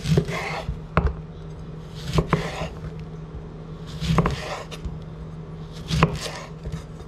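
Chef's knife slicing a lemon on a wooden cutting board: each cut ends in a sharp knock of the blade on the board, with a short wet scrape, one every second or two.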